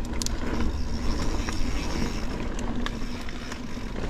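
Transition Spur mountain bike rolling along a dirt singletrack trail: steady tyre and riding noise over a low rumble, with scattered sharp clicks and rattles from the bike.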